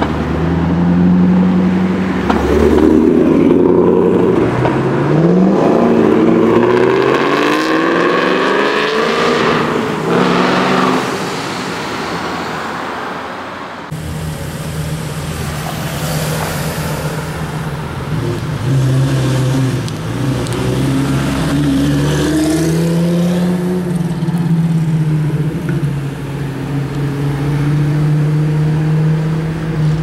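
A high-performance car's exhaust accelerating hard, its pitch climbing again and again through several gear changes before fading away. Then a Lamborghini Gallardo's V10 runs at a steady low note, with a brief rise in revs as it pulls away.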